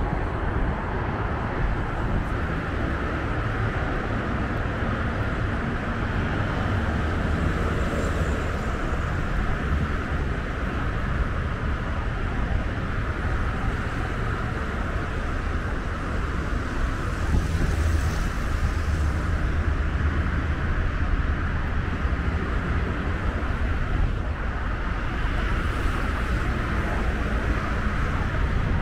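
Steady outdoor noise while moving along an elevated bike lane: low wind rumble on the microphone over a constant hiss of road traffic from below.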